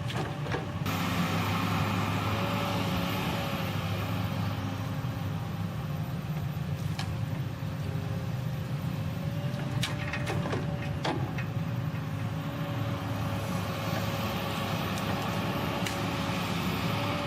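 John Deere 3554 shovel logger's six-cylinder turbocharged diesel engine running steadily under a held, slightly wavering whine, with a few sharp knocks about ten seconds in.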